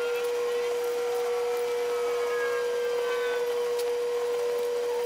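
A steady high-pitched tone holds at one even pitch throughout, with fainter gliding whistle-like tones over it and a faint click about four seconds in.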